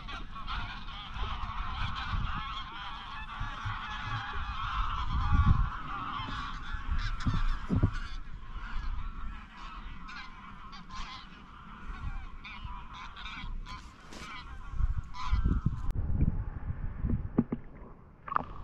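A large flock of geese in flight, honking constantly in a dense chorus that thins to scattered calls in the second half and dies away near the end.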